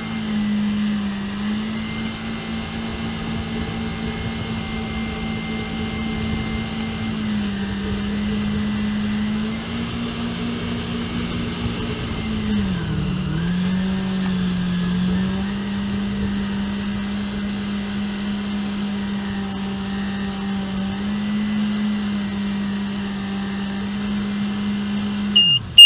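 Jet ski engine running steadily at speed, easing off briefly about halfway through and then picking back up. Just before the end there is a short, loud, high beep.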